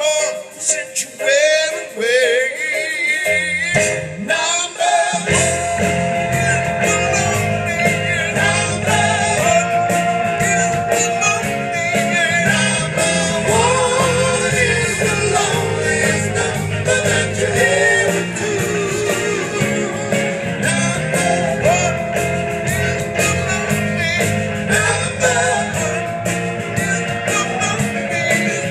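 Rock band playing live, heard from the audience: singing over electric guitar, bass and drums. The first few seconds are sparse with little bass, then the full band with a heavy low end comes in about four to five seconds in.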